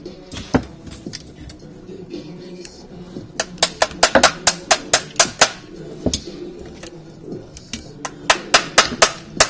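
Sharp clicks and taps from airsoft gearbox parts being handled and fitted, coming in two quick runs of about four or five clicks a second, with faint music underneath.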